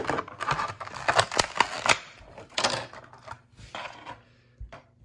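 Clear plastic packaging crackling and clicking as a small die-cast toy tractor is pulled out of its tray. The noise is busy for the first two seconds, then thins to a few scattered clicks.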